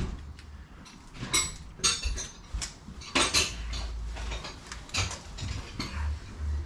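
Metal tools and hardware clinking and clattering: a handful of sharp, uneven metallic clinks.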